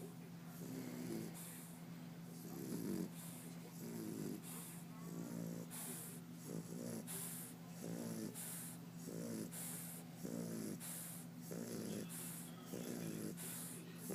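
English bulldog snoring in its sleep: a fluttering, rattly snore on each breath, roughly one a second, with breathy hiss between.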